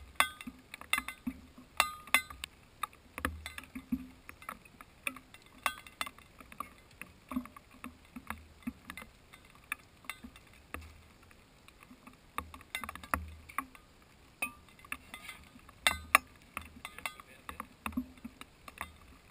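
Raindrops striking a GoPro's housing: irregular sharp ticks, several a second, a few louder than the rest, over a faint low rumble.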